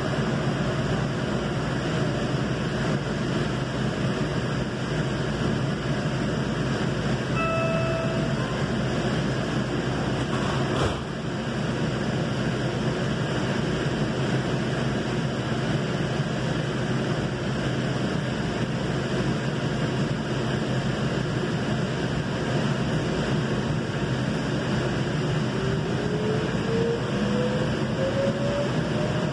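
Valley Metro light rail train running, heard from inside the car: a steady rolling noise from the wheels and track. A brief tone sounds about seven seconds in, a short click comes around eleven seconds, and a rising whine builds near the end.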